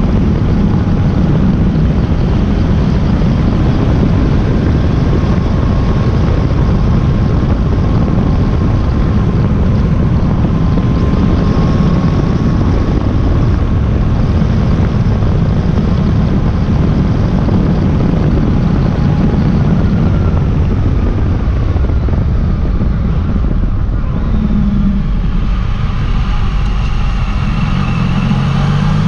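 Yamaha Tracer motorcycle riding along, heard from an on-board camera: a steady low engine note under constant wind and road rush. Near the end the engine note climbs in pitch as the bike accelerates.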